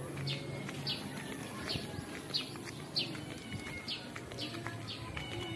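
A bird chirping over and over, short high notes that fall in pitch, repeating about every two thirds of a second. A low steady hum sits underneath and fades out about halfway.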